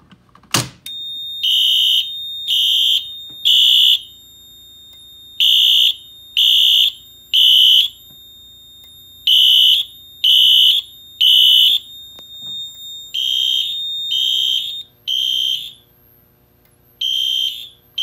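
A Notifier pull station is pulled with a couple of sharp clicks, then Wheelock fire alarm horns sound in the temporal-three evacuation pattern: three short blasts, a pause, repeating about five times. A steady high tone runs under the horns and stops about twelve seconds in.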